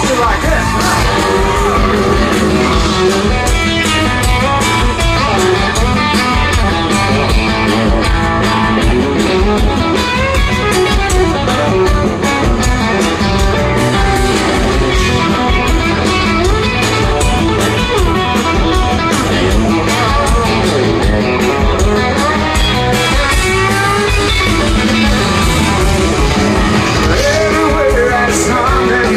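Live country-rock band playing loud through a concert PA, led by electric guitar over bass and drums, recorded from within the crowd.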